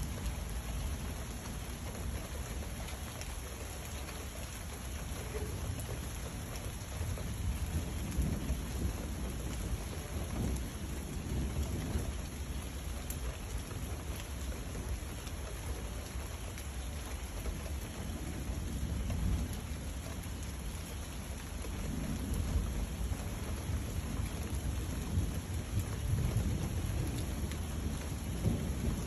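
Steady rain falling, with low rolling thunder rumbling and swelling about a third of the way in and again through the last third.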